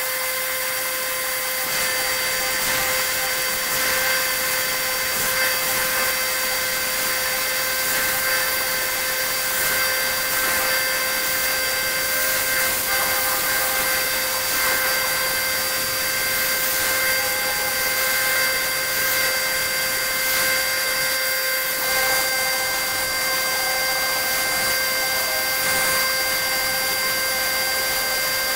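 Plasma cutter cutting metal plate: a steady hiss of the arc and air with a constant high whine, running without a break.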